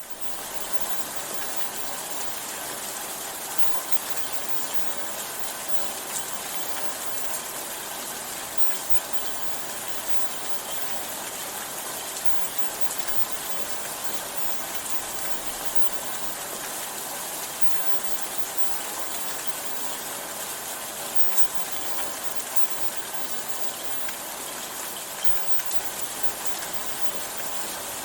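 Steady rain, an even hiss with scattered faint drop ticks, fading in at the very start.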